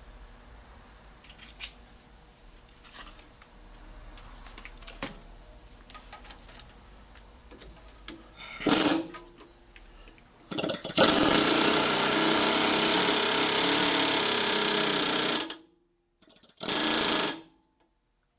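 Pneumatic hammer driving an intake valve guide into a Mopar 318 cylinder head. Light clicks of tools being handled, then a short burst of rapid hammering about nine seconds in, a steady run of hammering for about four and a half seconds, and a final short burst near the end.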